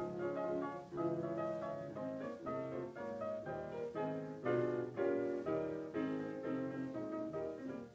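Instrumental music led by piano, a quick run of struck notes changing several times a second.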